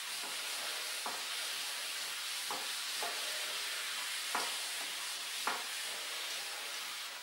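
Whiteboard eraser wiping marker off a whiteboard: a steady soft rubbing hiss, with a few faint knocks scattered through it.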